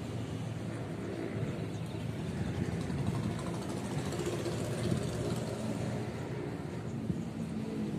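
Steady low rumble of road traffic on the bridge roadway.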